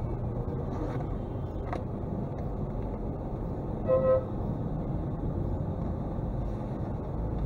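Steady low rumble of slow-moving traffic heard from inside a car, with one short vehicle horn honk about four seconds in.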